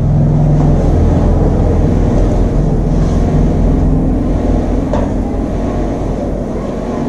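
A steady, loud low mechanical rumble with a hum, easing off slightly toward the end, with a few faint light clicks over it.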